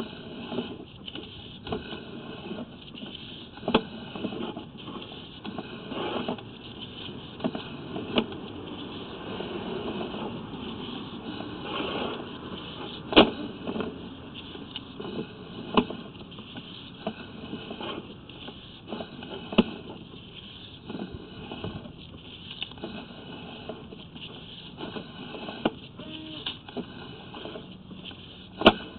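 Sewer inspection camera's push cable being pulled back out of the line: a steady scraping rustle with a few irregular sharp knocks.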